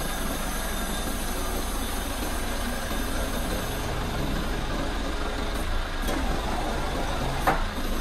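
Hyundai crane truck's diesel engine running steadily while the truck-mounted crane lifts a mini crawler excavator, with a couple of knocks near the end, the second one sharp and the loudest.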